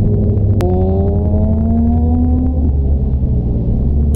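Suzuki GSX-R sportbike engine running at speed under a steady low drone of wind. About half a second in there is a sharp click, then the engine pitch rises steadily for about two seconds as the bike accelerates, then settles.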